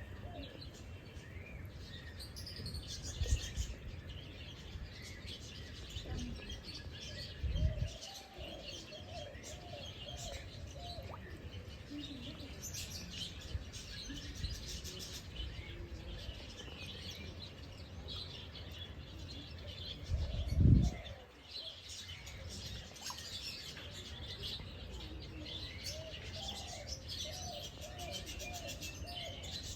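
Several birds chirping and calling, with a run of short, lower repeated notes twice. A few low thumps break in, the loudest about two-thirds of the way through.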